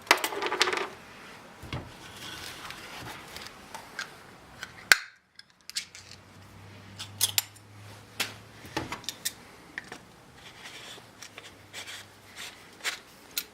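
Scattered sharp clicks, taps and light rustling of an air grease gun and its parts being handled, as the barrel is worked and a grease cartridge readied to thread in. The sound drops out briefly about five seconds in.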